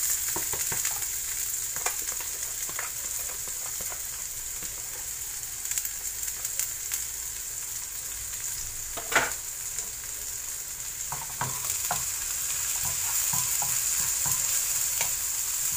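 Diced red onion, garlic and ginger sizzling in hot oil in a nonstick frying pan, a steady high hiss, with a wooden spatula clicking and scraping against the pan as it stirs; one sharp knock about nine seconds in.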